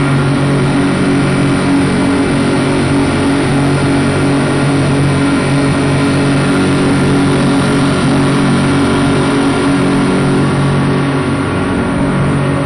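Speed boat's twin 225-horsepower outboard motors running steadily at speed, a constant low drone over the rushing noise of the wake.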